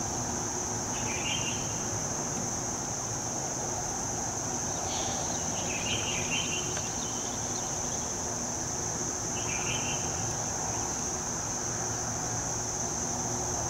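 Steady high-pitched drone of insects, over low outdoor background noise. A few short chirps come through about a second in, again around five to six seconds in, and near ten seconds.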